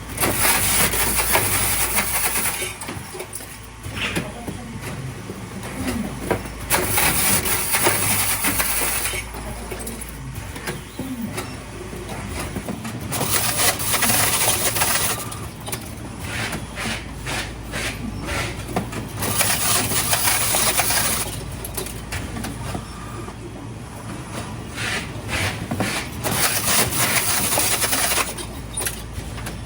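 Automatic ice-box (styrofoam box) taping machine running with a steady motor hum. About every six seconds, as each box is taped, there is a loud noisy burst lasting about two seconds, five in all.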